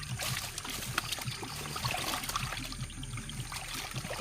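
Water splashing and trickling, with many small irregular clicks and soft thumps.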